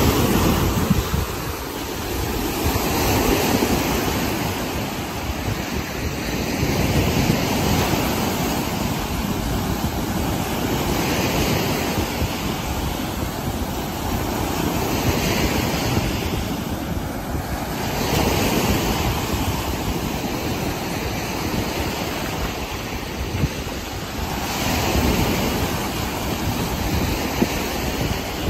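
Choppy lake waves breaking and washing up a sandy beach one after another, the surf swelling and easing every few seconds, with wind rumbling on the microphone.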